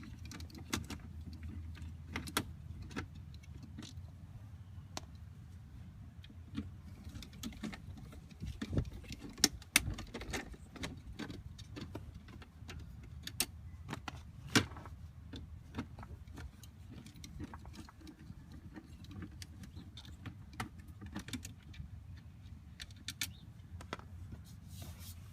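Scattered clicks, taps and knocks of a screwdriver and plastic trim as screws are taken out of a panel box under a car's dashboard, a few sharper knocks standing out near the middle, over a low steady rumble.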